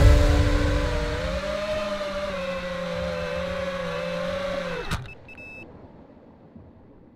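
Electronic music ending: a held synth chord with a wavering lead line that dives down in pitch and cuts off abruptly about five seconds in, leaving only faint background.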